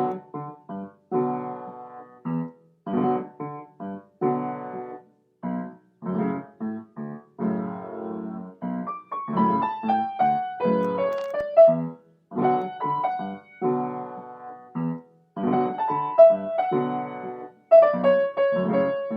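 Instrumental keyboard music: short chords played in a steady rhythm, with a falling melody line about halfway through.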